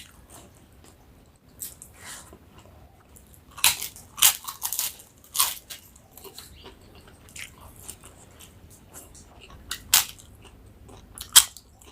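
Crisp papad being bitten and crunched: a run of loud crunches about four seconds in and two more near the end, with softer chewing between.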